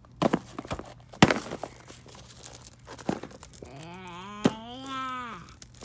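Small plastic action figure striking a tissue-paper piñata: several quick knocks with crinkling of the paper fringe in the first couple of seconds and one more a second later. A drawn-out voice follows for about two seconds near the end.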